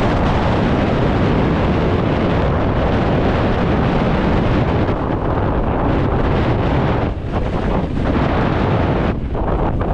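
Steady rush of wind buffeting a camera microphone on a mountain bike descending at speed, easing briefly twice near the end.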